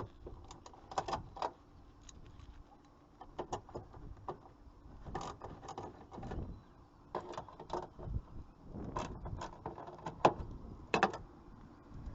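Irregular metallic clicks and clinks of a hand tool working the two nuts that hold a car's tail light assembly in place, in clusters of a few clicks with short pauses between.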